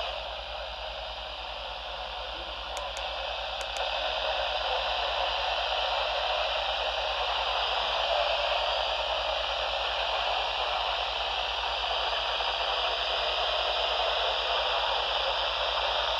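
Radio receiver static: a steady hiss cut off below and above the voice range, with a faint low hum underneath. It grows slightly louder about four seconds in.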